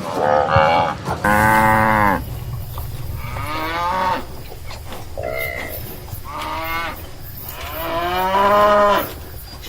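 Cattle mooing: a series of calls, the two loudest about a second long each, one a little over a second in and one near the end, with shorter calls between.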